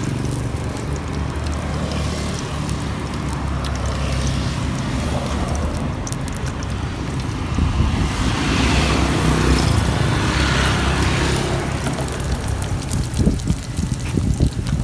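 Road traffic: a steady low rumble, with a passing vehicle swelling louder about eight seconds in and fading by eleven, and a few knocks near the end.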